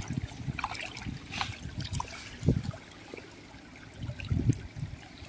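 Shallow stream water trickling and splashing as a hand lifts a quartz pebble out of it, with a few dull low thumps.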